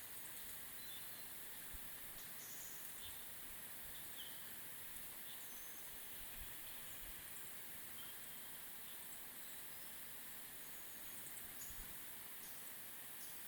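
Faint forest ambience: a steady soft hiss with scattered short, high bird calls and chirps.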